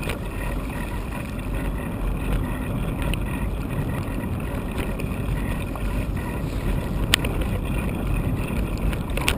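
Steady rumble of a bicycle riding on a tarmac path, tyre and wind noise on the camera microphone, with one sharp click about seven seconds in.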